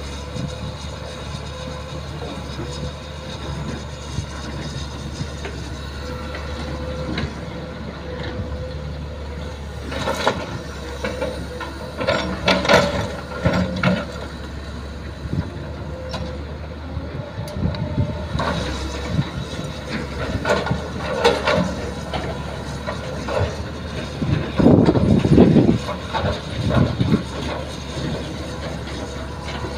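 Hitachi hydraulic excavator working with its diesel engine running steadily. Bursts of clatter and knocking come as its bucket digs and drops soil and rocks into a dump truck's steel bed, the loudest about 25 seconds in.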